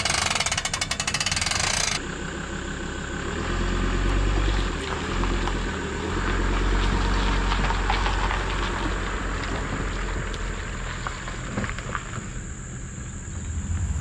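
Boat trailer's hand winch ratcheting in a fast, even run of clicks for about two seconds, then the engine of the ute towing the boat trailer, running low and steady.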